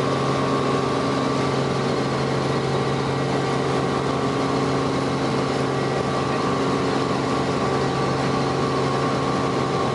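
Robinson R44 helicopter heard from inside the cabin as it climbs after takeoff: the steady drone of its six-cylinder Lycoming piston engine and rotor, an even hum that holds the same pitch throughout.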